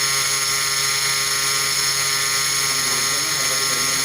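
High-speed spindle of a CNC jewellery-cutting machine running steadily while cutting a gold bangle, a constant high whine over a hiss.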